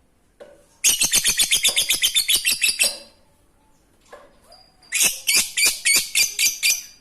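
Lovebird (Agapornis) giving its 'ngekek' chatter: a fast run of high, evenly repeated notes lasting about two seconds, then after a pause a second, slower run of about nine notes.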